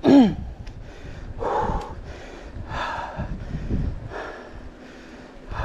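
Cyclist breathing hard while pedalling up a steep climb: heavy exhalations about every second and a half, opening with a short vocal sound falling in pitch.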